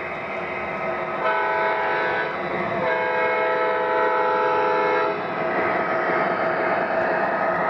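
O-gauge model GE Evolution Series diesel locomotive's onboard sound system blowing its horn twice, a short blast and then a longer one, over the model's steady running sound. The running noise grows louder near the end as the locomotive passes close by.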